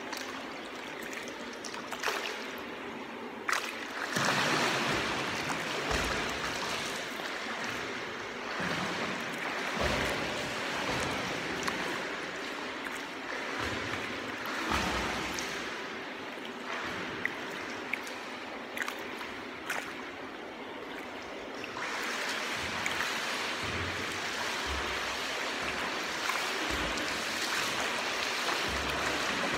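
Pool water splashing and lapping as a person swims, with a continuous churning of the water. The splashing grows louder about four seconds in and again a little past twenty seconds.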